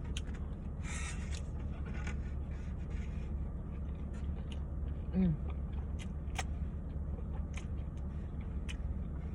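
Close-up eating sounds from a steak and cheese sandwich: chewing with scattered mouth clicks, a short rustle about a second in and a brief falling hummed sound about five seconds in, over a steady low hum.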